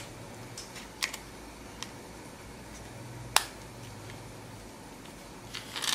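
A few small plastic clicks and knocks as a battery is fitted into a handheld battery-powered milk frother and its battery cap closed, the sharpest click about three and a half seconds in.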